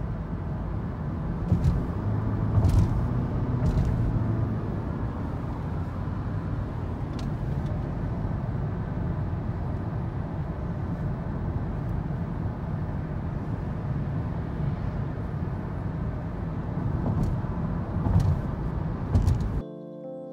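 Steady low rumbling noise with a few sharp knocks scattered through it, cut off suddenly near the end.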